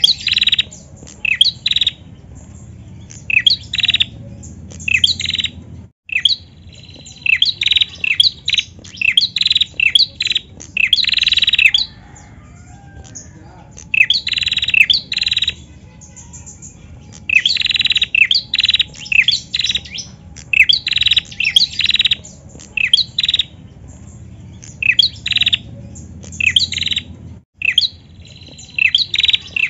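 Female prenjak (a small prinia-type songbird) calling in a cage: loud, rapid runs of short, sharp chirping notes, several a second, in bursts with brief lulls between them.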